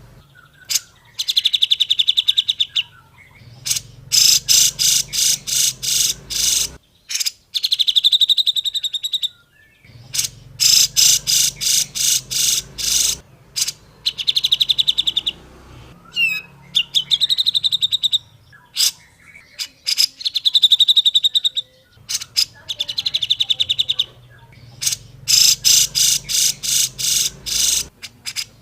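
Cucak jenggot (grey-cheeked bulbul) song: loud phrases of rapid, evenly repeated high notes, broken by short pauses and returning in the same pattern again and again.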